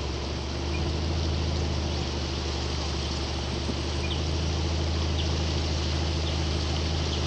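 A river boat's motor running steadily underway, a low hum with a fast, even pulse, growing a little louder about a second in.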